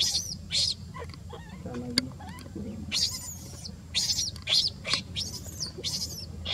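Baby monkey squealing: short, high-pitched cries that bend up and down, coming in quick runs. One run comes right at the start and a longer one about halfway through, with a quieter stretch between.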